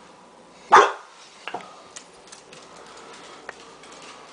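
Pet dog barking: one loud, sharp bark about a second in, followed by a fainter second one.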